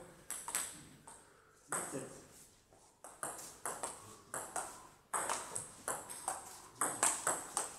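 Table tennis rally: the ball clicking off the rackets and bouncing on the table in quick exchanges, with a short lull between about one and three seconds in.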